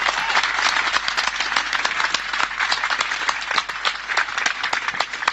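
Crowd applauding: dense, steady clapping that eases slightly toward the end.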